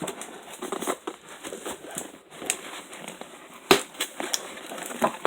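Cardboard shipping box being cut and forced open with a chef's knife: crackling and scraping cardboard with a few sharp knocks, the loudest a little past halfway.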